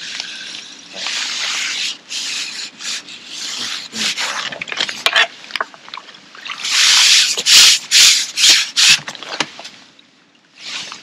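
Loud rubbing and scraping noise in irregular bursts of a second or less, loudest from about seven to nine seconds in.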